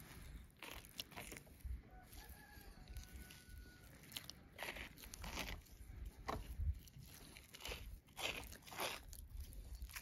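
Irregular crunching strokes and knocks of food preparation, with a rooster crowing faintly about two seconds in.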